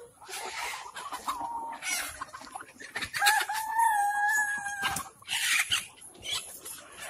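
A flock of Kadaknath chickens clucking, with a rooster crowing once in one long call of about two seconds near the middle.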